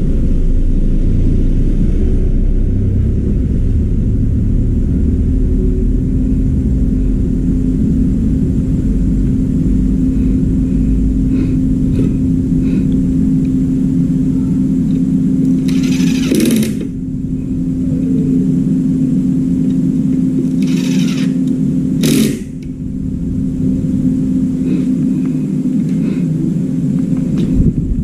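A steady low hum over a heavy rumble, broken by three short hissing bursts about two-thirds of the way through.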